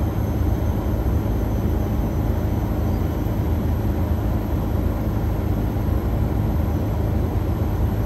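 Steady low hum and rumble of running air-conditioning outdoor machinery, unchanging throughout.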